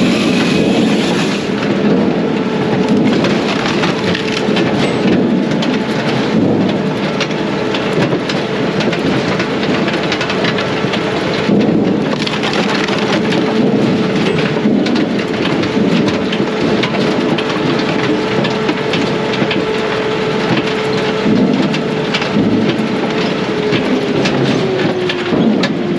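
Brute Force USA 18-24HD diesel firewood processor running under load, with a steady whine and a constant clatter of split firewood tumbling; the whine sinks in pitch near the end.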